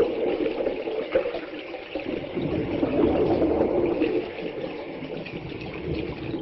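Liquid rushing through a pipeline, a continuous watery flow that wavers in level.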